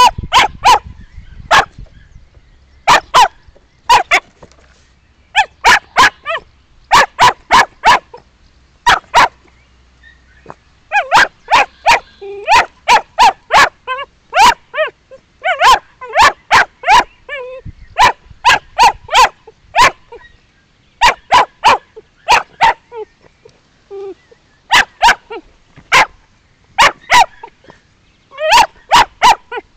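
Sealyham terrier puppy barking at a cage holding fox scent and rabbit skin, in quick runs of short, high-pitched barks, two to six at a time, with a couple of brief whines between runs.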